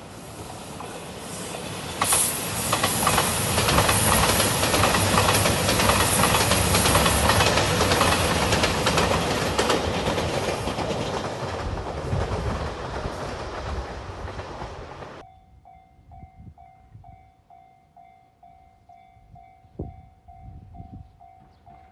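JR Shikoku 2700 series diesel express train passing close by at a level crossing: engine noise and rapid wheel clacks over the rail joints swell in and hold loud for several seconds, then fade. About two-thirds of the way through the sound cuts off suddenly, and a level crossing bell is heard ringing in a steady, repeated ding.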